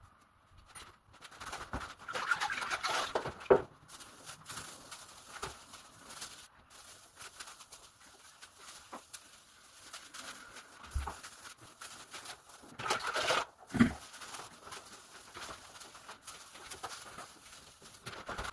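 Tile grouting work: a grout float scraping and squeaking across tiles in intermittent strokes, with a couple of sharp knocks about three and a half seconds and fourteen seconds in.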